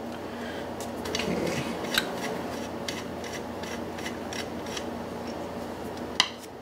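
Light metallic clicks and scrapes of a hex driver and an aluminum ruler working against the steel prop shaft of a DLE 55 engine as the shaft is unscrewed, scattered about one or two a second, with a sharper click near the end, over a faint steady hum.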